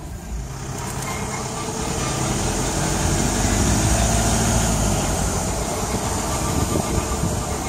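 Road and wind noise of a moving 2014 Ram Promaster EcoDiesel van heard with the microphone out the window by the front left wheel well, with the whining that returns when it is put back into drive, growing louder over the first few seconds. The owner believes the whine is transmission-related.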